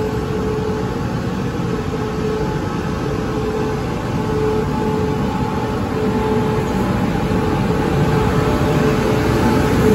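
Tze-Chiang limited express electric train pulling slowly out of an underground station, with a steady electric hum over a low rumble of wheels on track. It grows a little louder as the power car passes close by.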